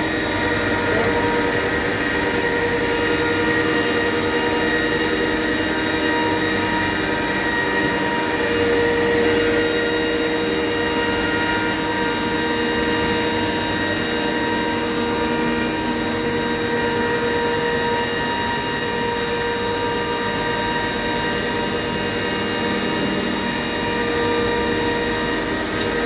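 Electric woodworking router running together with its dust extraction: a steady whine over a broad hiss, holding level throughout.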